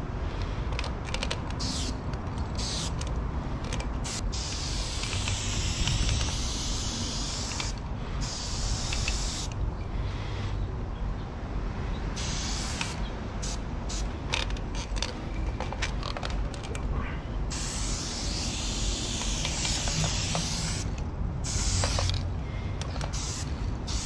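Aerosol spray-paint can hissing in repeated bursts of one to several seconds with short breaks, as paint is sprayed onto a concrete wall. A steady low rumble runs beneath.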